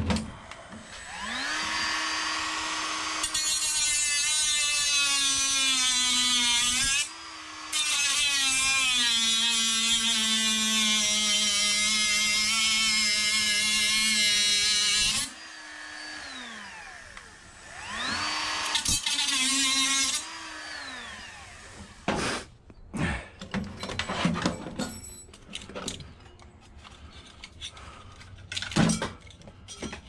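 Electric drill spinning up, then running with a harsh grinding noise, its motor pitch sagging under load as it bites into metal, for about twelve seconds with a short break, then winding down. A second shorter run follows, then scattered clicks and knocks of metal parts being handled.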